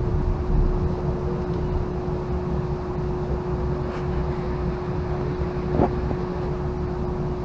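Cabin noise of a Siemens S70 streetcar running between stops: a steady low rumble with a constant hum, and two faint clicks, about four and six seconds in.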